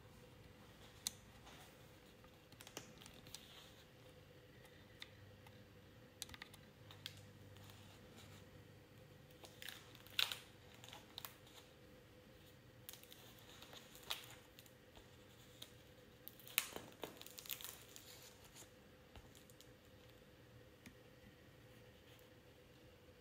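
Pages of a book of sketches and collages handled and turned by hand: scattered faint paper rustles and clicks, busiest about ten seconds in and again around sixteen to eighteen seconds in, over a faint steady hum.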